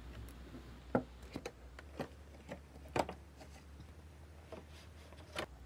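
Clear plastic cake box being handled and opened, giving a string of light plastic clicks and knocks, the sharpest about a second in and about three seconds in.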